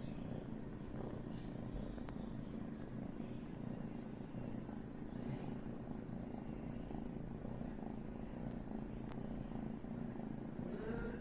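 Domestic cat purring steadily and continuously while being scratched under the chin.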